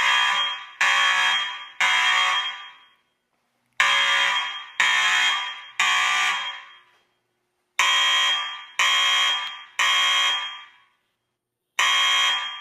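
Fire alarm sounding in the temporal-three evacuation pattern: three rings about a second apart, then a pause of about two seconds, repeating. Each ring starts sharply and dies away.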